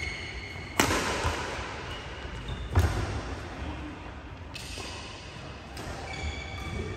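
Badminton rackets striking a shuttlecock during a doubles rally: two sharp hits about two seconds apart, echoing in the hall.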